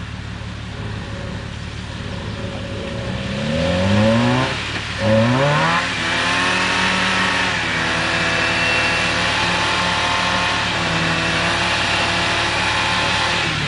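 Suzuki Samurai's engine revving as it drives through deep water. Its pitch climbs twice, about three and five seconds in, then holds steady under load, with water splashing and churning around the vehicle throughout.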